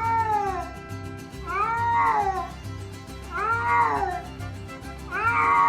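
A cat meowing over and over: about four long meows, each rising then falling in pitch, evenly spaced, over background music with a steady beat.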